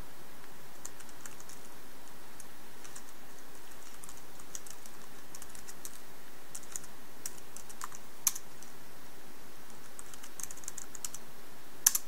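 Typing on an Asus Eee PC 1000H netbook's keyboard: runs of light key clicks, with two louder key clacks about eight seconds in and again just before the end.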